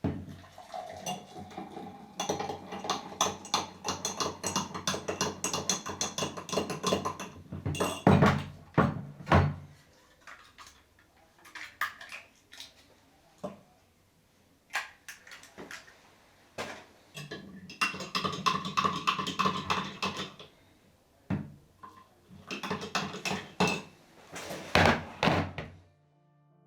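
Clattering knocks and rattles of hard objects being handled, in two longer busy stretches with scattered single knocks between them.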